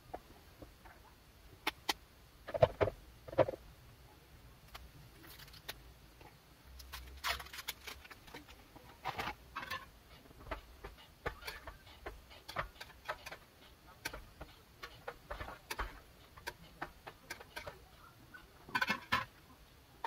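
Hand cooking noises: chopsticks tapping and scraping in a metal pot and small spice jars being picked up and set down, as a scatter of light clicks, knocks and brief scrapes. A few louder knocks come about three seconds in and again just before the end.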